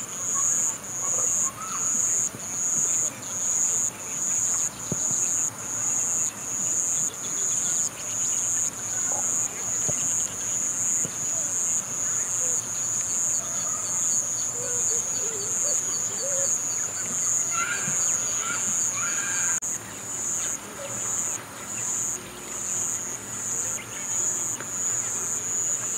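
Insects singing: a high, steady trill that swells and fades in an even rhythm, with faint chirps mixed in briefly near the middle.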